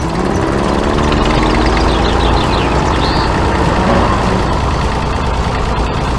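Tractor engine sound effect running steadily with a deep drone, laid over a toy tractor being driven through sand.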